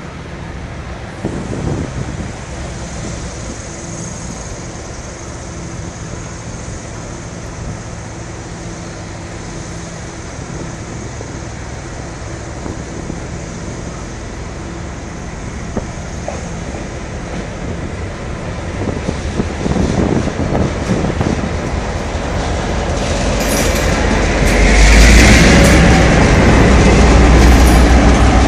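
Taiwan Railways R100-class diesel-electric locomotive R156 running as it approaches hauling new EMU800 cars. It grows louder from about two-thirds in and is loudest as it passes close near the end, with its engine running and wheels rolling over the rails.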